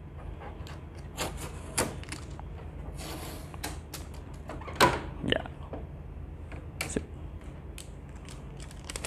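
Blue protective tape being peeled off the white plastic casing of a Daikin MC55UVM6 air purifier, and its side panel being unclipped: scattered plastic clicks and knocks, the loudest about five seconds in.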